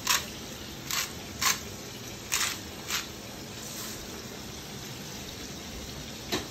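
Sea salt dispensed from a handheld container over a frying pan in short gritty strokes, five in the first three seconds and one more near the end. Under them runs the steady sizzle of chicken thighs frying in the pan.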